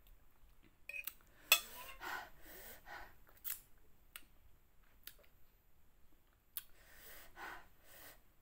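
A person blowing out several hard breaths through pursed lips against the burn of very spicy food. A few sharp clicks fall between the breaths, the loudest about a second and a half in.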